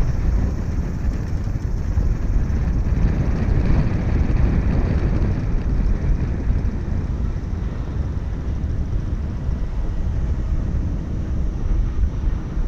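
Jet engines of an Airbus A320-family airliner on landing approach, a continuous rumbling roar that is strongest in the first half and eases off toward the end.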